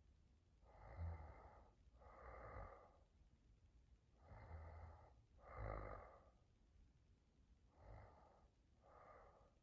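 A sleeping woman snoring softly, faint. There are three slow breaths, each heard as two noisy pushes of air, in and then out.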